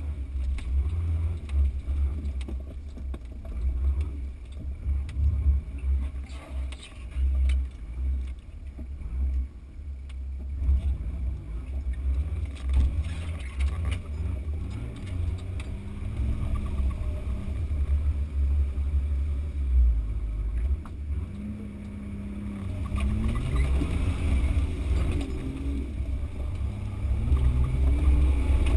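Off-road 4x4's engine running under load at low revs as it crawls up a steep dirt slope, its pitch rising and falling with the throttle over a heavy low rumble.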